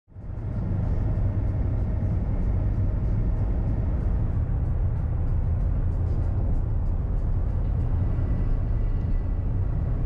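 Steady low rumble of a car's engine and tyres on the road, heard from inside the cabin while driving, fading in quickly at the start.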